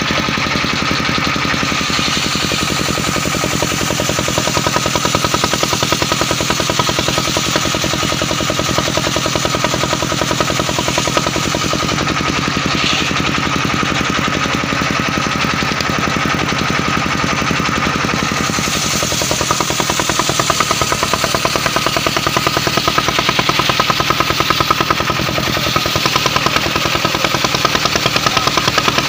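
Mobile circular sawmill running: its engine chugs with a fast, even beat under a steady high whine from the saw. The sound grows brighter about two-thirds of the way through.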